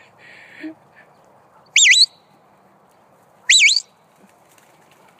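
Two short warbling whistle blasts about a second and a half apart, each bending down and back up in pitch: a handler's herding whistle commands to a working border collie.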